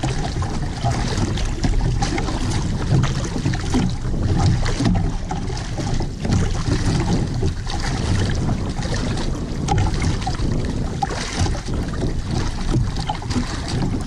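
Choppy sea water slapping and splashing against the hull of an outrigger boat, with wind buffeting the microphone.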